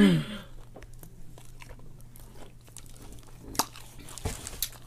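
Chewing and lip-smacking on a Philly cheesesteak sandwich: irregular soft, wet mouth clicks and smacks, with a couple of sharper smacks about three and a half seconds in and near the end. A short falling voice sound comes right at the start.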